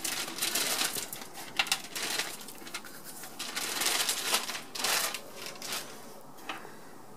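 Clear plastic bag crinkling and rustling in quick irregular bursts as it is opened and pulled off an instrument, dying down near the end.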